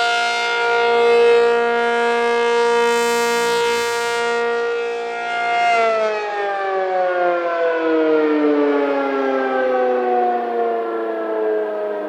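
ACA P-50 outdoor warning siren sounding its steady alert tone, swelling and fading in loudness. About six seconds in the tone starts to fall steadily in pitch as the siren winds down.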